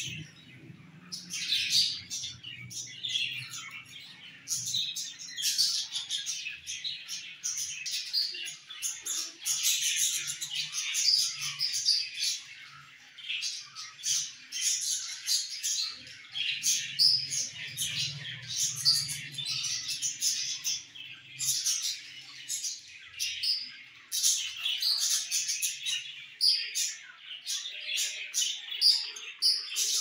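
A flock of budgerigars chirping and chattering continuously, many birds calling over one another in quick, high chirps.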